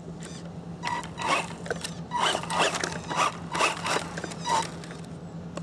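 Tamiya Frog electric RC buggy with a 19-turn Etronix motor setup taking off on loose dirt and leaves, giving a rapid run of short, rasping bursts of motor and spinning tyres that ends shortly before the close.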